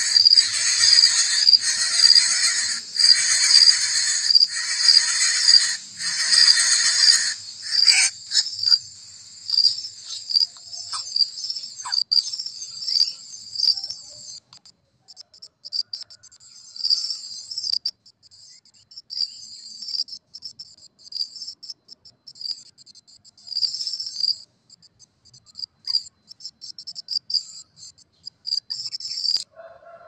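Insects calling: a loud rhythmic buzz pulses about once a second for the first seven seconds or so, then gives way to a thinner, high-pitched chirping that carries on.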